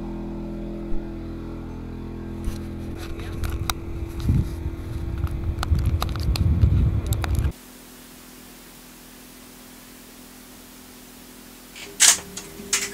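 Portable petrol generator engine running steadily with an even hum, an uneven low rumble joining it partway through. The sound then cuts off abruptly to a quieter steady room hum, with two sharp clicks near the end.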